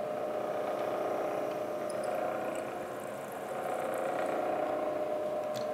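Milling machine spindle running a short drill bit through 1144 steel, drilling a 1/4-20 clearance hole: a steady hum with a whine, easing briefly about three seconds in.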